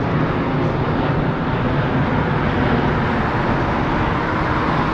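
Steady road traffic noise, an even rush of passing vehicles with no break.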